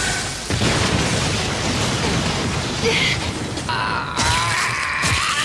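Anime fight sound effects for a flurry of blows: a dense, noisy rush of hits and whooshes starting about half a second in. A voice cries out over it in the last second and a half.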